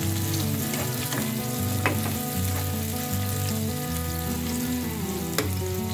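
Sliced onions sizzling in hot oil in a pan while a spatula stirs them. The spatula clicks sharply against the pan twice, about two seconds in and again near the end.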